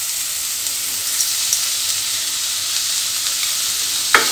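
Chopped onion, carrot, potato and green chillies sizzling steadily in hot oil in an open pressure cooker as they are sautéed. A single sharp knock near the end, from the wooden spoon against the pot.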